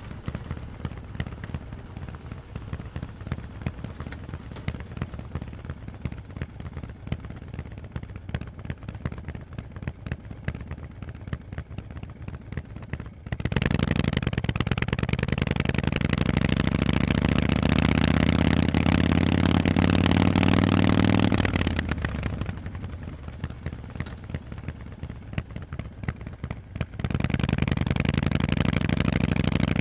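Harley-Davidson Forty-Eight's 1200 cc air-cooled V-twin through loud Vance & Hines exhausts, running quietly at low revs for the first dozen seconds. The throttle then opens suddenly and the engine pulls for about eight seconds with its pitch slowly rising. It drops back to low revs, then opens up loud again near the end.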